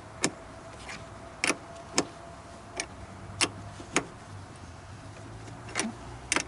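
Sharp metallic clicks of a hand wrench working a truck battery terminal clamp bolt, about eight of them at uneven intervals, over a faint steady hum.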